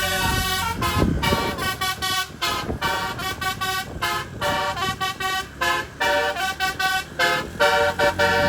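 Tour bus telolet horn, a set of twelve roof-mounted trumpets driven by an electronic telolet module, playing a quick melody of short stepping notes with brief gaps between phrases.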